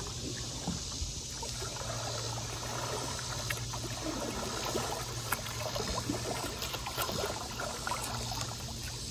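Shallow river water trickling and lapping, with the light splashes of a kayak paddle dipping in.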